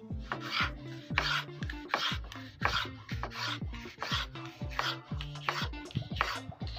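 Chef's knife slicing a bell pepper on a wooden cutting board, a steady run of scratchy cuts about one to two a second. Background music with a steady beat plays under it.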